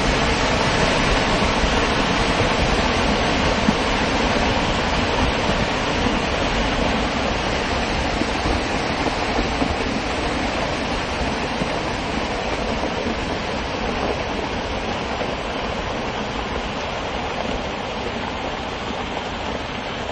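Rockslide: rock and earth pouring down a steep slope, a continuous rumble and clatter that slowly fades.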